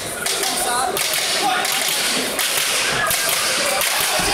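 Noisy crowd in an echoing sports hall during a kickboxing bout: shouted calls from the people around the ring over a steady din, with sharp slaps and smacks.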